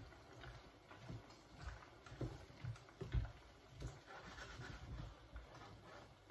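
Faint, irregular light taps and clicks of a utensil against a stainless steel pot while noodles are stirred.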